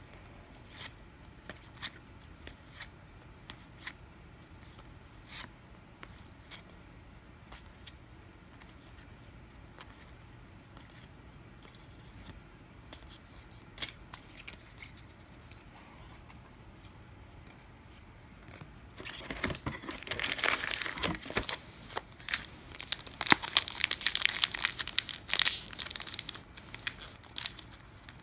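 Faint scattered clicks of trading cards being handled and sorted. About two-thirds of the way in, a 1999 UD Choice baseball card pack wrapper is torn open and crinkled, loud and crackly for several seconds.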